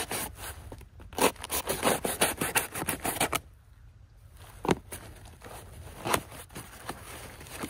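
Small hand digging knife scraping and jabbing into soil to dig a planting hole, a quick run of gritty strokes for about three seconds, then a short pause and a few separate scrapes.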